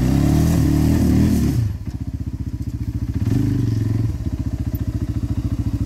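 Off-road engine running with an even firing pulse, revved hard twice: a longer burst at the start, and a shorter one about three seconds in.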